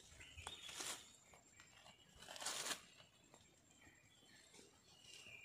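Goat tearing off mouthfuls of grass close up: short ripping crunches, twice, the louder one about two and a half seconds in.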